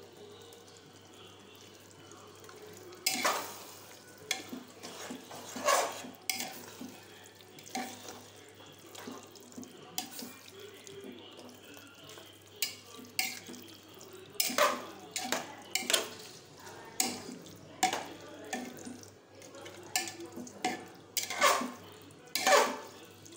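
Steel spoon stirring mutton curry in a metal pressure cooker, scraping and knocking against the pot in irregular strokes that begin about three seconds in.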